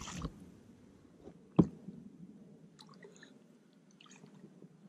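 Faint small water sounds, drips and light squelches, with one sharp knock about a second and a half in.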